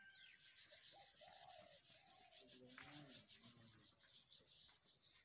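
Near silence: faint outdoor background with a soft, rough rubbing hiss, with a few weak wavering tones under it.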